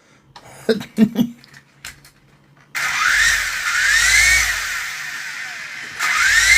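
Toy RC Apache helicopter's electric rotor motors starting suddenly, their whine rising and falling several times as the throttle is worked, over a low hum of the spinning rotors. It surges again near the end. The repaired controller is driving the helicopter.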